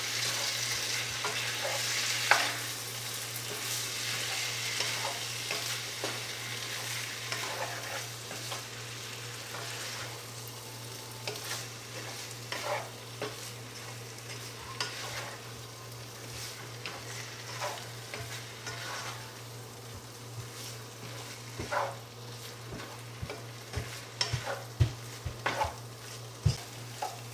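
Sausage and potato curry sizzling in a pan as it is stirred, with the spoon scraping and knocking against the pan. The sizzle slowly dies down, and the knocks come more often in the second half.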